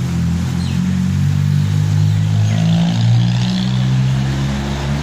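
A motor vehicle's engine running steadily, its low hum shifting slightly in pitch.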